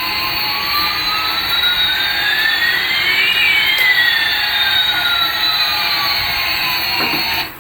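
Jet engine sound effect: a steady hiss with two whines, one rising and one falling, that cross midway. It cuts off just before the end.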